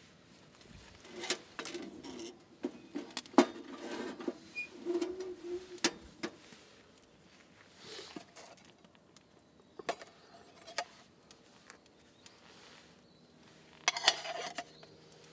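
Scattered clicks, knocks and light clatter of cooking gear and utensils being handled while breakfast is prepared, with the sharpest knock about three seconds in and a short clatter near the end.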